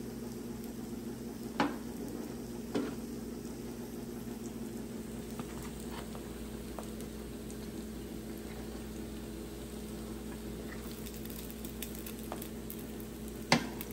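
Fried rice sizzling on a hot Blackstone E-Series electric griddle over a steady low hum, with a few sharp clicks of a utensil against the griddle about 1.5 and 3 seconds in and again near the end.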